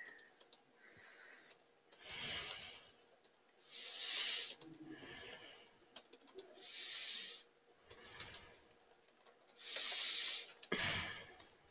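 Faint computer keyboard typing, scattered key clicks, with several soft breathy hisses in between.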